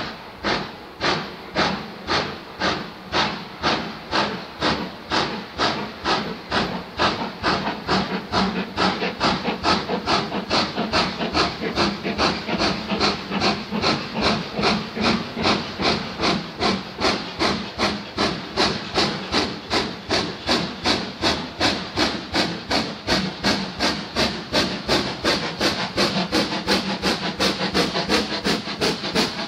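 LMS Black 5 steam locomotive chuffing as it approaches, its exhaust beats at about two a second at first, quickening and growing a little louder.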